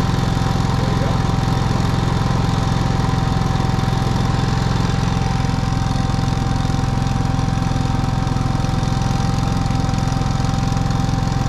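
GENMAX GM10500iETC inverter generator's 458 cc single-cylinder OHV four-stroke engine running steadily on propane with no load, eco mode off, with a steady high whine over the engine note.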